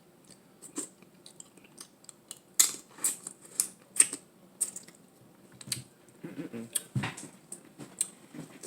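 Close-miked eating of Dungeness crab: irregular sharp clicks and wet smacks from picking the shell and chewing the meat, with a few short low hums near the end.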